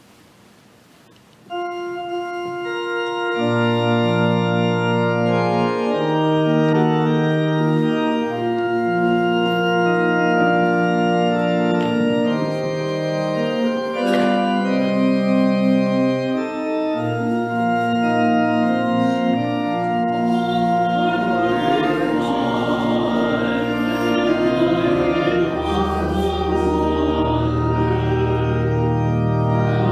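Church organ playing a hymn in slow held chords, starting suddenly just over a second in. Voices of people singing join the organ about two-thirds of the way through.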